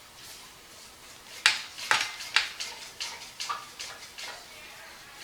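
A run of sharp clicks and knocks, about a dozen at an uneven pace, starting about a second and a half in; the first is the loudest, and they thin out near the end.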